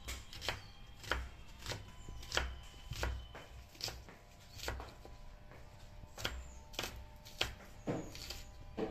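A knife chopping food in steady, unhurried strokes, about one and a half chops a second.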